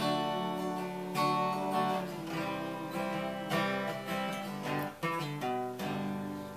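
Acoustic guitar strumming with a harmonica playing long held melody notes over it: the instrumental intro of the song, before any singing.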